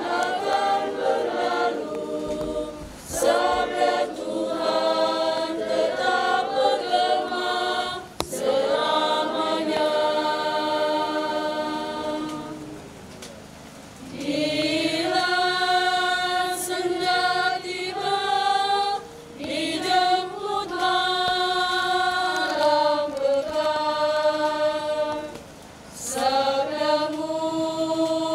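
A women's choir singing unaccompanied, in long held phrases with short breaths between them and a longer pause about halfway through.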